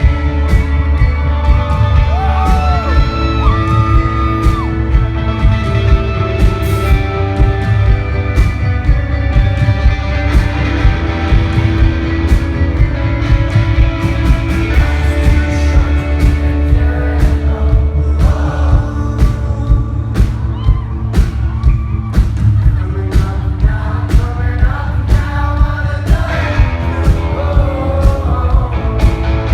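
Live rock band playing a song: a male lead voice singing over guitars, bass and a steady drum beat, loud and bass-heavy, with shouts from the crowd mixed in.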